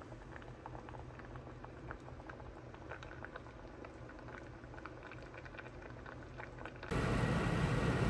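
Faint, irregular bubbling pops from a pot of hot gochujang stew. About seven seconds in, a louder steady whir from the oven drying the cherry tomatoes takes over suddenly.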